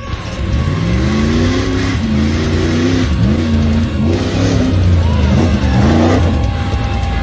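Off-road race vehicle's engine revving hard around a dirt course, its pitch climbing and dropping several times as it accelerates and backs off.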